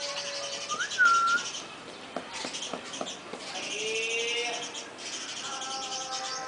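Talking parrot whistling: a short rising whistle about a second in, a lower gliding whistle around four seconds, and a held tone near the end. Fast high chirping runs underneath throughout.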